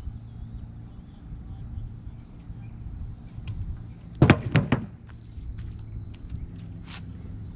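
A steady low rumble, broken about four seconds in by three heavy thuds in quick succession, with a few faint clicks around them.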